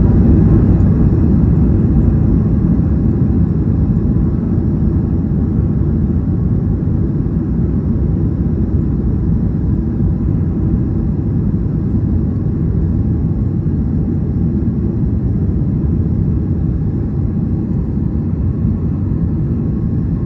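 Airliner landing: a loud, deep, steady rumble of the plane's engines and airflow that slowly dies down, with a faint steady whine above it.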